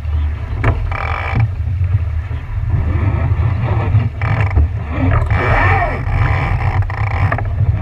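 Wind buffeting the microphone on a boat on the water, a steady uneven low rumble over the wash of the boat. Faint voices come through in the middle.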